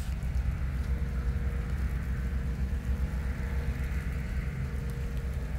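Deutz combine harvester running: a steady low rumble with a faint, even hum over it.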